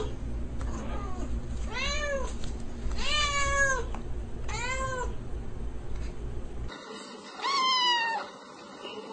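Domestic cat meowing: a run of drawn-out meows about a second apart, then, after a steady low hum drops out abruptly, one more meow near the end.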